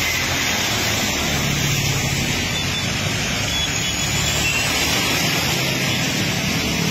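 Vehicles driving through a flooded street: engines of a truck, car and motorcycles running low under a steady rush of floodwater.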